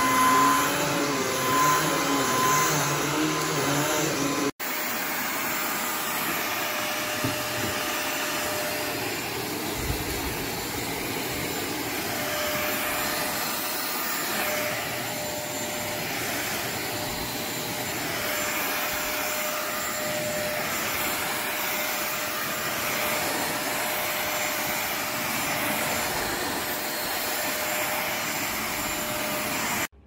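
Shark Ultralight Pet Pro corded stick vacuum running on carpet: a steady motor whine with a faint held tone. Its pitch wavers for the first few seconds, then the sound breaks off for an instant and comes back steadier.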